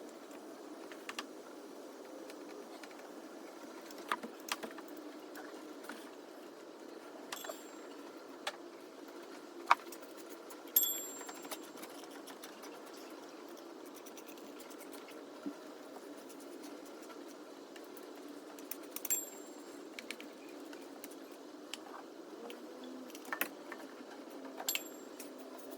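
Scattered metallic clicks and clinks of hand tools and bolts as a new water pump is fitted to the engine, over a steady background hum. The loudest clinks, about ten seconds in and again later, ring briefly.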